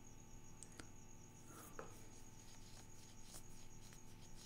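Near silence: a faint steady room hum with a few soft clicks, and light quick rustling from about a second and a half in.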